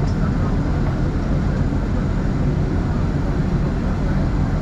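Steady low rumble of an airport apron shuttle bus's engine, heard from inside the bus cabin through the glass, with no changes in pitch or level.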